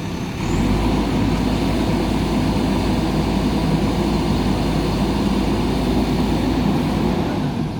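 JCB 3DX backhoe loader's diesel engine running hard at high revs, stepping up in level about half a second in and then holding steady.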